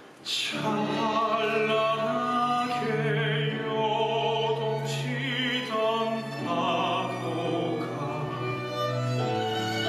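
A man singing a musical-theatre ballad with vibrato through a headset microphone, over orchestral accompaniment with bowed strings; the music starts abruptly just after the beginning.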